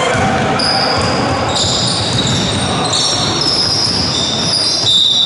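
Basketball game sounds on a wooden sports-hall court: trainers squeaking on the floor many times over, players' running footsteps, and a ball bouncing.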